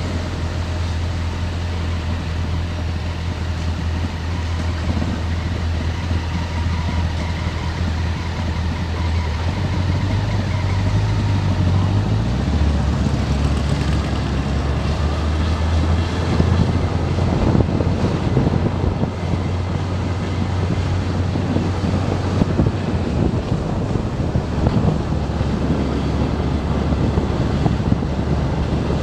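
Motorcycle engine running steadily at low road speed, heard from the bike itself, with wind buffeting the microphone. The engine note shifts about twelve seconds in, and the wind noise grows stronger in the second half.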